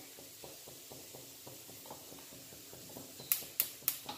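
Low kitchen room tone, then near the end four sharp clinks in quick succession, about three a second, as kitchenware is handled at the stove.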